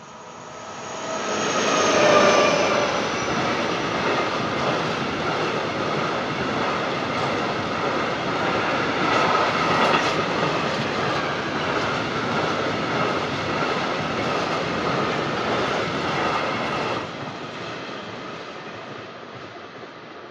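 Freight train of tank wagons passing close by: wheel and wagon rumble swells quickly in the first two seconds and stays loud, with a steady high squeal running over it. It drops off abruptly about three seconds before the end as the last wagon passes, then fades away.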